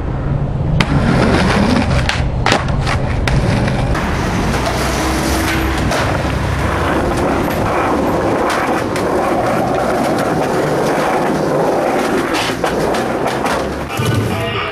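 Skateboard wheels rolling over concrete with a steady rumble, broken by several sharp clacks of the board's tail and wheels hitting the ground as tricks are popped and landed.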